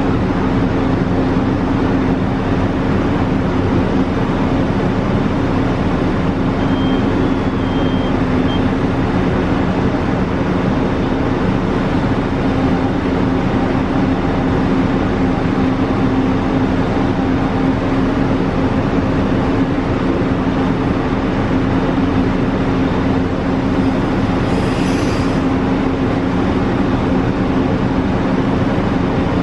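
Vehicle engine running steadily with a constant, even hum.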